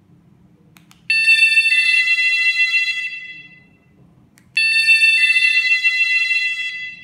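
Several battery-powered magnetic door alarm units (King-serry KS-SF03R) sound their electronic doorbell chime together, triggered by remote. The chime plays twice: a two-note electronic ding-dong that starts abruptly, adds its second note about half a second later and fades out over a couple of seconds.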